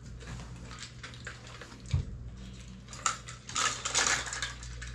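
Dishes and a glass knocking and clicking on a table, with a thump about two seconds in, then a drink poured from a plastic pitcher into a glass for about a second near the end.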